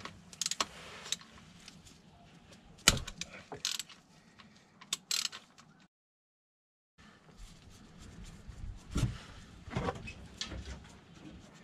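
Ratchet with an 8 mm Allen socket clicking in short runs as it undoes the SMG gearbox drain plug, with a sharp metallic crack about three seconds in. The sound drops out completely for about a second in the middle.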